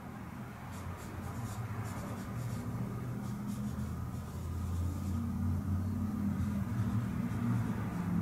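Low rumbling hum that grows louder through the second half, with faint scratching sounds in the first few seconds.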